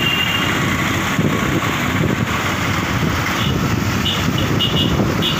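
Steady road and engine noise heard from a moving vehicle in traffic, with several short high-pitched beeps in the last two seconds.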